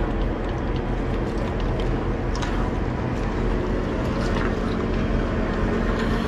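Boat engine running steadily with an even low hum, with a few faint short clicks over it.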